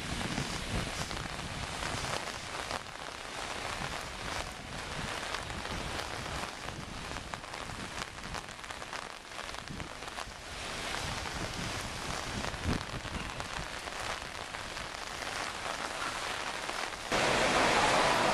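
Steady rain falling on wet pavement: an even hiss with many faint patters, growing louder near the end.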